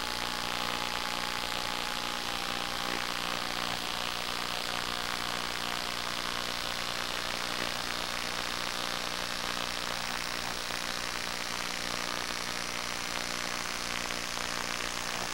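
Electric motor and propeller of an FPV model airplane heard onboard over a steady rush of airflow. In the first few seconds the motor tone sinks as the throttle is eased back, and the plane then glides down on low power.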